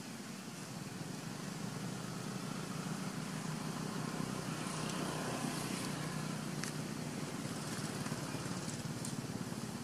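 A motor vehicle's engine hum in the background, swelling to its loudest about halfway through and easing off again as it passes. A few faint light crackles sound over it.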